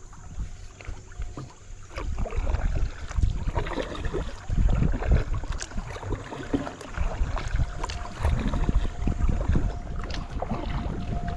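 Paddle strokes splashing and dripping beside a small paddled boat on shallow creek water, with an uneven low rumble on the microphone.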